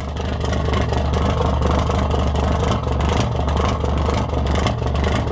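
Yanmar 6CA-ET 360 hp marine diesel running steadily, heard at its hull-side wet exhaust outlet at the waterline, which spits cooling water. A loud, even low hum.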